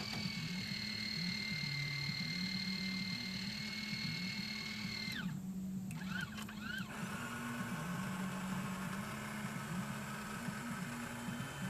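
An engine running steadily, with a high whine that glides down about five seconds in, chirps briefly and settles at a lower pitch.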